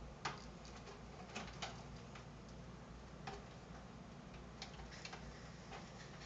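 Scissors snipping plastic cable ties off bundled power-supply cables: a handful of short, sharp clicks at irregular intervals, two close together about a second and a half in.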